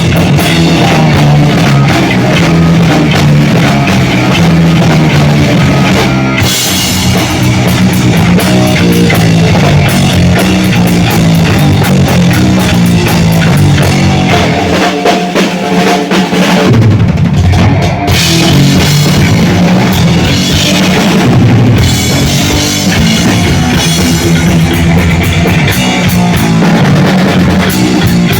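Loud live heavy metal: a drum kit played hard and fast over a low, pounding riff, with some guitar in the mix. The deep bass drops out briefly about halfway through.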